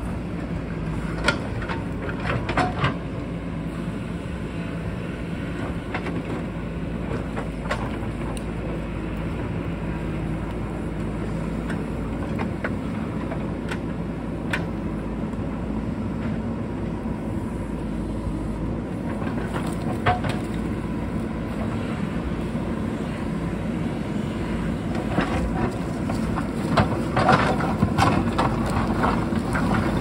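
JCB backhoe loader's diesel engine running steadily at work, with scattered sharp knocks, more of them near the end.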